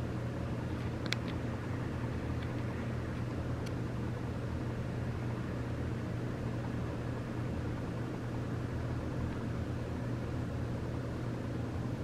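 Steady low hum with an even hiss, the running of a room's ventilation unit. A faint click about a second in.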